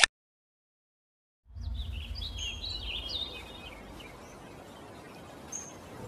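Birds chirping over a steady low outdoor ambience, starting about a second and a half in after a short silence; the chirps die away around the middle, leaving the ambience.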